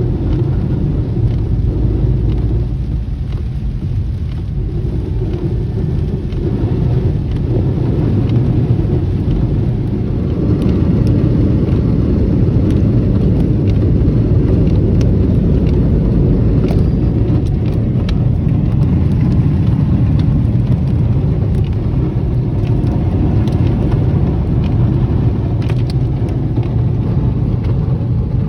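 Steady road and engine rumble heard from inside a moving Ford Escape, growing a little louder about ten seconds in.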